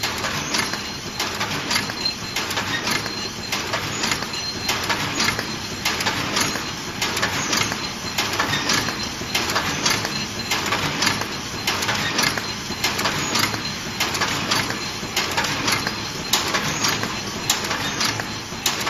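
Paper cup forming machine with a cup counting and stacking unit running at production speed, 52 cups a minute: a steady rhythm of sharp metallic clacks over a continuous mechanical clatter.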